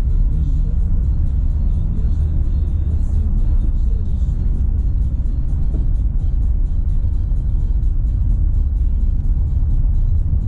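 Steady low road and tyre rumble of a Renault Sandero Stepway 2 driving on a dirt road, with music playing over it.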